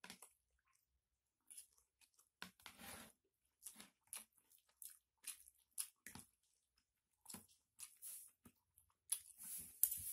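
Quiet close-up eating sounds: chewing and crunching of pecel Padang with crunchy chips, along with a spoon and fork scraping in the bowl. The noises are short and separate, a few each second.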